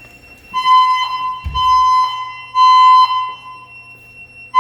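Silent Knight 6820EVS emergency voice system sounding its high-low fire alarm tone through the building's speakers. The tone starts about half a second in, runs for about two and a half seconds, breaks off for over a second and comes back at the end; a single dull thump is heard about a second and a half in.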